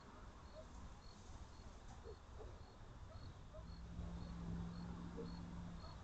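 Faint night ambience: a cricket chirping evenly about twice a second, with a low steady hum that comes in about halfway through and stops near the end.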